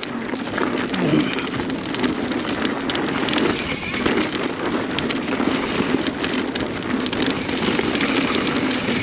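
Mountain bike ridden over a rough dirt trail: steady tyre noise on the ground, with a dense patter of clicks and rattles from the bike over bumps.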